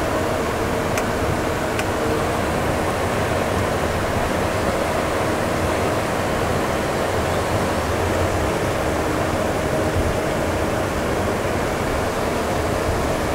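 Steady cabin noise inside an Embraer E195 cockpit while taxiing: air-conditioning airflow over the GE CF34-10E turbofans at idle, an even rushing hiss with a faint steady hum.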